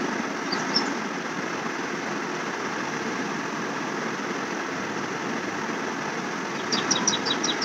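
Steady mechanical hum and hiss from a running appliance in the room. A bird's rapid high chirps come in near the end, about five a second.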